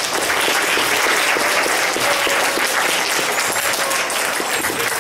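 An audience of schoolchildren applauding: many hands clapping at once in a steady, dense patter.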